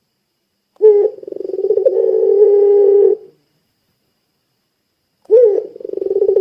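Puter pelung dove giving its long drawn-out coo: a short swooping note breaking into a fast flutter, then one long held low note of about two seconds. A second coo of the same shape starts about five seconds in.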